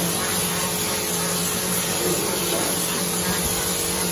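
Mortar spraying machine and hand-held spray gun at work, blowing wet plaster onto a brick wall: a continuous hiss of air and spray over a steady machine hum.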